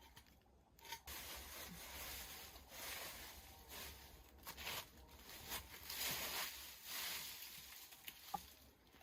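Irregular rustling and scraping, a run of short noisy strokes a few times a second.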